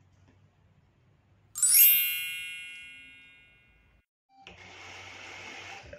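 A sparkling chime sound effect: a quick upward sweep into bright ringing tones that fade away over about two seconds. Near the end a steady hiss sets in.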